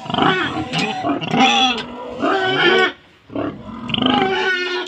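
Pigs squealing loudly in a run of high, wavering cries, with a short break about three seconds in.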